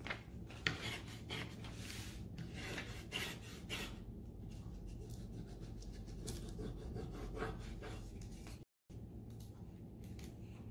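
A rub-on transfer being rubbed down onto an MDF picture frame: a run of short, soft rubbing strokes, mostly in the first four seconds, then a few fainter ones.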